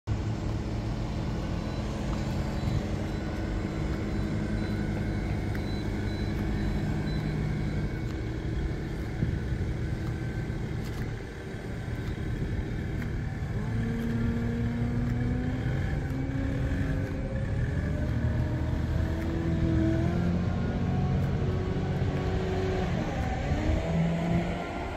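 A motor vehicle engine running steadily, its pitch stepping and gliding up and down in the second half as the engine speed changes.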